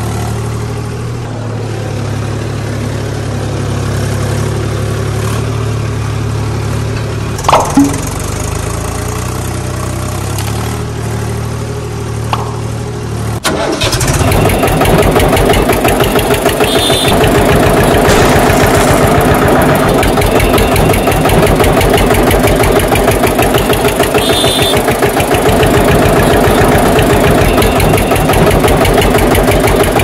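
Tractor engine sound: a low, steady idle for the first half, two sharp clicks about a quarter of the way in, then about halfway through a louder engine running with a fast, even chug.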